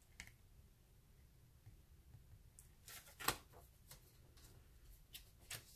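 Tarot cards being handled: a few faint clicks and taps, the sharpest about three seconds in, with two more near the end.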